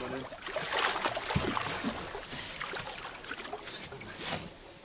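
Water splashing and sloshing against the side of a boat, with a few irregular knocks, as a large wels catfish is gripped and unhooked at the gunwale.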